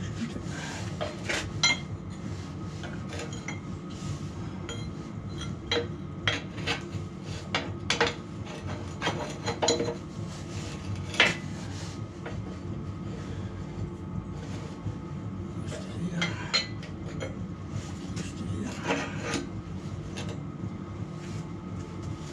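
Steel parts clinking and clanking as a pin is worked into a backhoe's linkage, in irregular knocks with a sharper clank about 11 seconds in, over a steady low hum.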